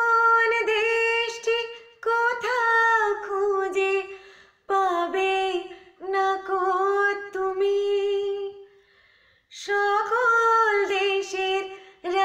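A woman singing a Bengali patriotic song about the motherland, unaccompanied, in long held notes. Her phrases are broken by short pauses for breath, about four and a half and nine seconds in.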